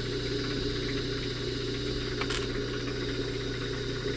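Jeweler's polishing motor running steadily with an even hum while buffing with rouge, with a single faint click about two seconds in.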